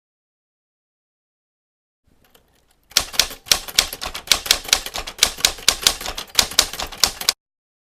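Typewriter keys clacking in a quick, uneven run of about five or six strikes a second. It starts after a silent stretch about three seconds in, with a few faint clicks just before, and stops abruptly near the end.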